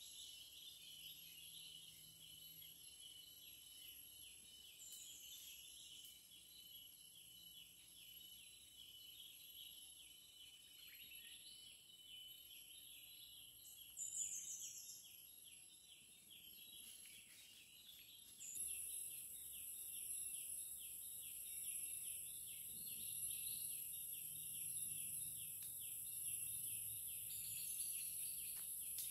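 Forest insect chorus: a rapidly pulsing buzz and a steady high-pitched whine, which get louder about two-thirds of the way through, with a few short falling whistled calls.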